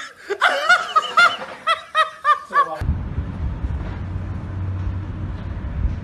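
Laughter in quick, high-pitched rising-and-falling peals, which cuts off abruptly about three seconds in. A low, steady rumble follows.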